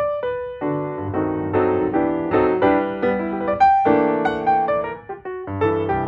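Background piano music: a melody of short notes over a lower accompaniment.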